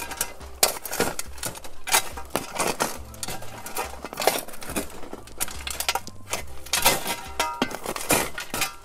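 Metal shovel scraping and knocking on a corrugated metal sheet as compost is sifted through a wire-mesh screen, with clumps and twigs pattering and clinking on the metal. An irregular run of scrapes and sharp taps.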